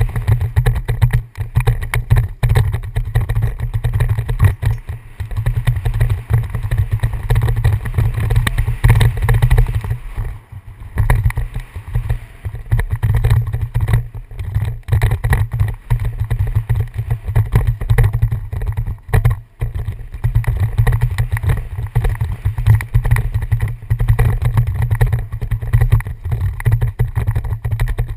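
Wind buffeting a helmet-mounted camera's microphone on a fast downhill mountain-bike descent, a loud steady rumble, with rattling and knocks from the bike and its tyres over the dirt trail. It eases briefly about ten seconds in.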